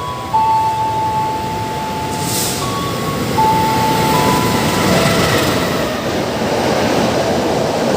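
Train moving through a station. A few steady tones near 1 kHz step up and down in pitch, with a short hiss about two seconds in. Running noise grows louder from about halfway.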